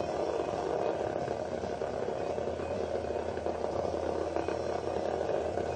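A small vibrating bug toy, a cheap Hexbug Nano knock-off, buzzing steadily.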